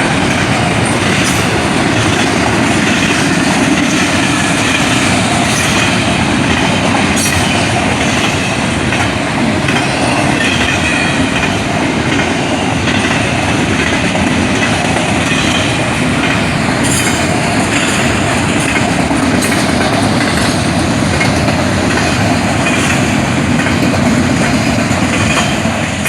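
A train passing close by at speed: a steady, loud rumble of rolling cars with wheels clicking over the rail joints, fading as the train clears near the end.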